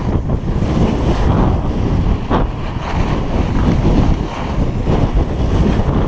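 Wind buffeting the microphone of an action camera on a skier running downhill, a loud, steady rumbling rush, with the skis scraping over packed snow and one sharper scrape about two seconds in.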